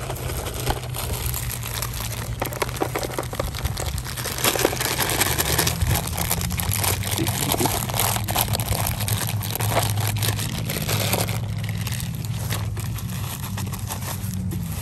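Plastic snack bags crinkling as nuts, raisins and candies are shaken out of them into a plastic bowl, the pieces landing with small rattling clicks.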